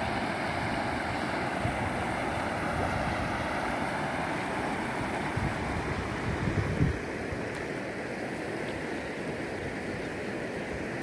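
Muddy floodwater rushing steadily down a swollen stream. Low buffets of wind hit the microphone, the strongest a little past halfway, and the rushing is slightly quieter after it.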